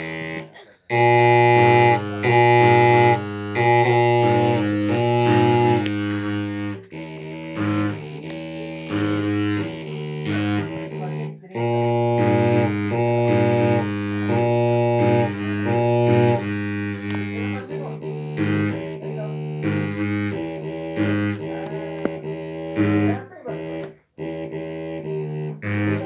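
A pair of long bamboo flutes blown together, sounding deep, buzzy held notes that shift between a few pitches in a repeating pattern, broken by a few short gaps.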